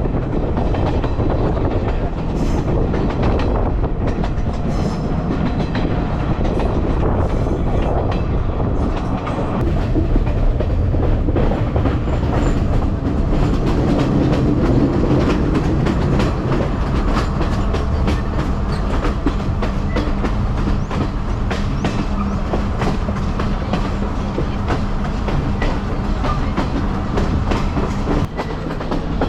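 Passenger train carriage running along the track, heard from inside the carriage: a steady rumble with wheels clattering over the rail joints.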